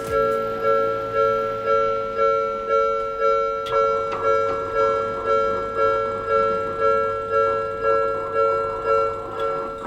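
Japanese level crossing's electronic warning bell ringing, a two-tone clang that repeats evenly about twice a second, the signal that a train is approaching the crossing.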